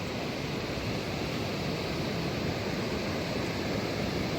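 Steady rushing roar of a small storm-runoff waterfall, heavy winter rainwater pouring down a mountainside.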